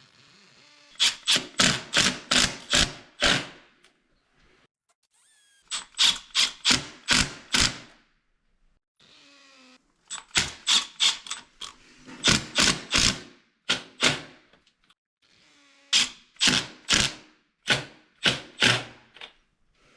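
Repeated sharp knocks of a tool striking during the toilet flange installation on a concrete slab, coming in six bursts of about two to eight strikes each, roughly three to four strikes a second.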